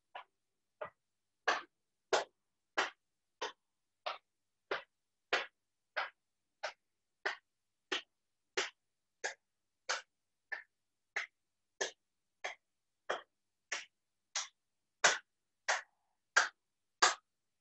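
A flat hand tapping on the body over clothing, a steady run of short slaps about one and a half a second, as in qigong self-tapping up the arm and chest. A few strokes near the end are louder.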